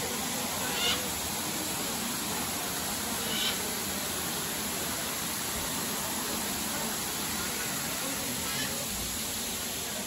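Steady rushing hiss of a waterfall's many cascading strands falling into a pool. Two brief high sounds stand out about a second in and again a couple of seconds later.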